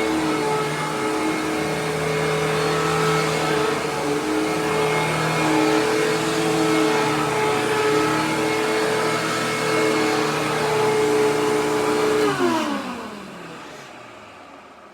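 Hoover WindTunnel TwinChamber upright vacuum cleaner running loud and steady, then switched off about twelve seconds in, its motor winding down with a falling pitch.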